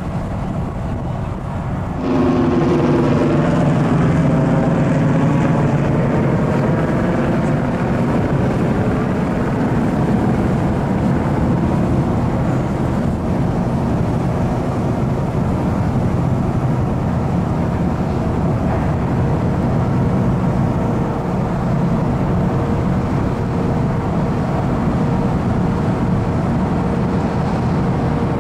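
Steady low drone of a car ferry's diesel engines, made of several held pitches. It steps up abruptly about two seconds in and then holds.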